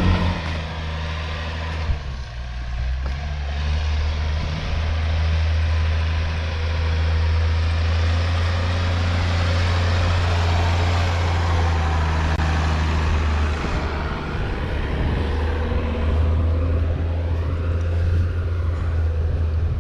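Tractor engine running steadily, a deep, even drone with a brief dip about two seconds in.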